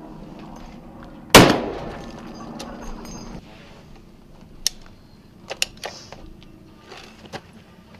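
A single shot from a Barrett .50-calibre sniper rifle about a second and a half in, echoing for about two seconds. Later, a few sharp metallic clicks as the rifle's magazine is released and pulled out.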